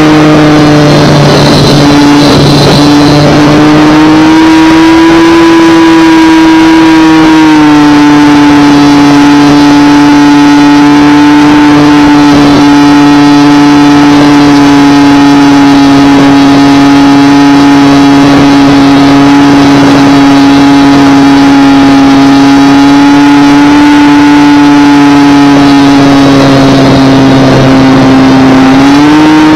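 Brushless electric motor and propeller of a Multiplex PC-6 Porter RC model plane running in flight, very loud from right behind the prop, with airflow rush. It is one steady drone whose pitch rises a little early on, dips slightly about seven seconds in, and climbs again near the end.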